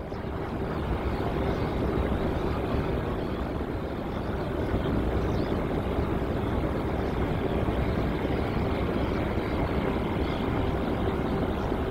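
Jet airliner engines: a steady rushing noise with a constant low hum through it, building over the first couple of seconds and then holding level.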